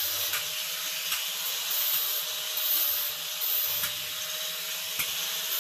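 Handheld power tool sanding and grinding steel: a steady, harsh abrasive hiss over a constant motor whine.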